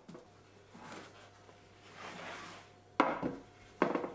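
Soft rustling as hands work dough on baking paper, then two sharp knocks with a short ring, a little under a second apart, as the metal baking tray is gripped and moved.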